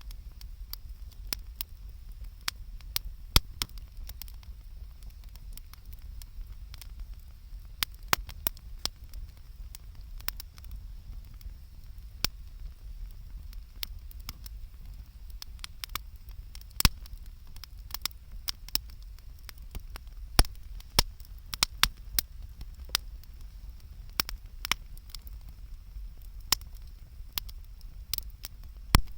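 Bonfire crackling, with irregular sharp pops, a few of them loud, over a low steady rumble.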